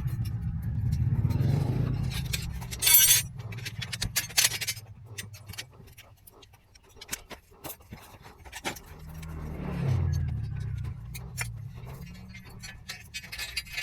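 Excavator engine running, with scraping and metal clinking and a short loud hiss or scrape about three seconds in; the engine note rises and falls again about ten seconds in.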